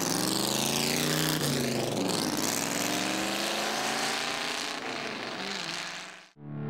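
1957 Ford Thunderbird race car's V8 engine running as the car drives past and away. The engine note drops in pitch as it passes, then fades into the distance.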